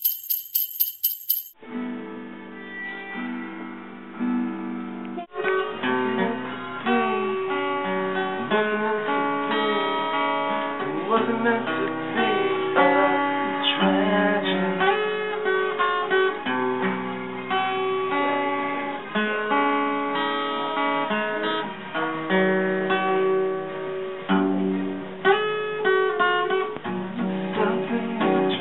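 Acoustic guitars playing, with plucked notes and strummed chords, after a brief bright sound at the very start. The playing has a short break about five seconds in.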